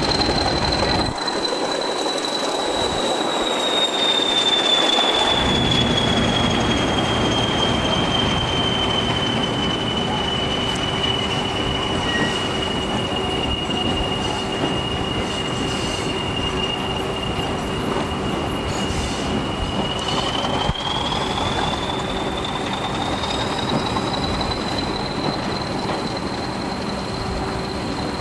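Diesel-hauled passenger train running close by, its steady rumble carrying a high whistle that slowly falls in pitch, holds, then rises again about twenty seconds in.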